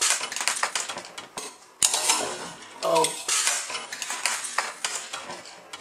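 3D-printed plastic gear train and escapement, driven by a falling weight, running fast with a dense clattering rattle of ticks, and a sharper knock about two seconds in.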